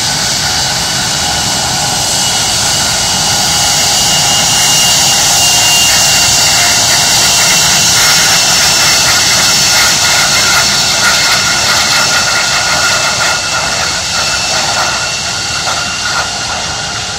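Airbus A320 jet engines running as the airliner moves along the runway: a loud, steady rushing hiss with a high whine, easing slightly near the end as it heads away.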